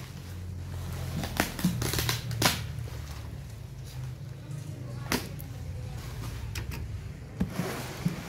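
Cardboard box being handled and shifted on a wooden table: scuffing of cardboard under hands, with a few sharp knocks, over a steady low hum.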